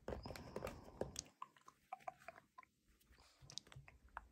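Handling noise of a Nike x Sacai Vaporwaffle sneaker being turned over in the hands: soft rubbing of fingers on the rubber outsole and mesh upper, with scattered light clicks. The handling goes quieter about a second and a half in and picks up again near the end.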